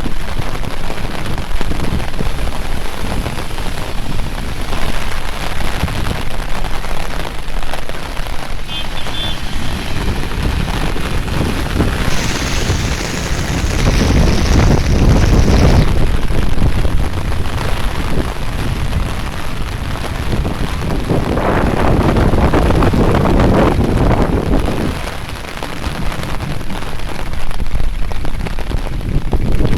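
Steady rain falling, with a constant low noise under it and two louder rushing stretches of a few seconds each, about twelve and twenty-one seconds in.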